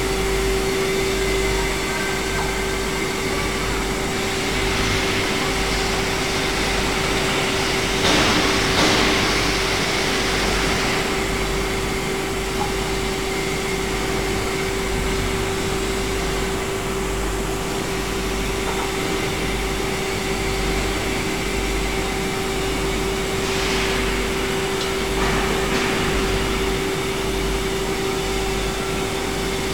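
Q3210 tumble-belt shot blasting machine running: a steady mechanical drone with a constant hum and an even hiss. Louder hissing swells come about eight seconds in and twice more near the end.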